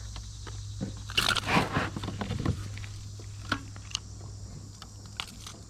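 Close handling noises in a kayak as a hooked fish is brought aboard: a cluster of scraping and rustling about a second in, then scattered sharp clicks and knocks.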